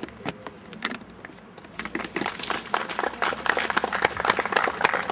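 A small crowd applauding. A few scattered claps at first, then many hands joining in about two seconds in, into steady clapping.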